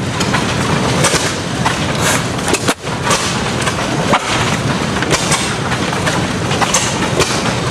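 Armstrong 6 HP single-cylinder, hopper-cooled hit-and-miss engine running close by: a steady mechanical clatter with sharp firing bangs at uneven intervals, as the governor lets it fire only when it slows.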